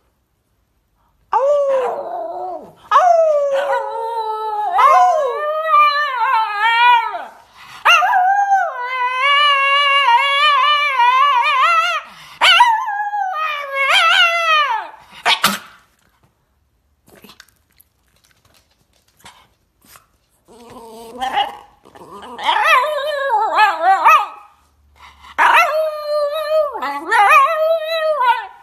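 Shiba Inu howling in long drawn-out cries whose pitch slides up and down and wavers, in two bouts separated by a few seconds of quiet in the middle.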